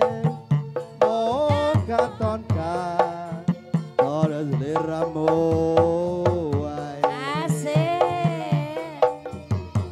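Live Javanese gamelan music: kendang hand drums beat a busy rhythm under a singer's voice, which slides and wavers on long held notes.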